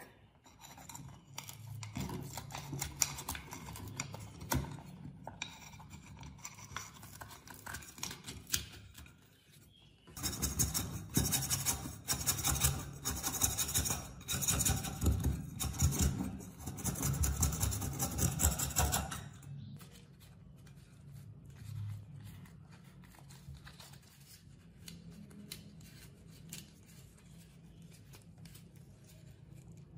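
Hand-tool workshop sounds: scraping strokes and small clicks, much louder and denser for about nine seconds in the middle, then fainter.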